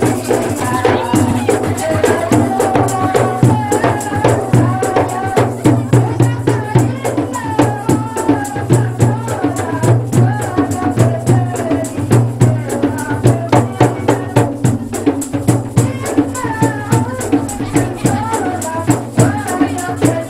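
A woman singing into a microphone, her voice amplified, over a steady beat of hand drum and jingling rattle-like percussion.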